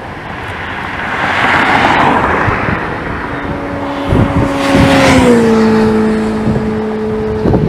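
Vehicles passing on an interstate highway. A swell of tyre and road noise builds about a second in. A second pass about five seconds in carries a steady droning tone that drops in pitch as the vehicle goes by, with a few low thumps around it.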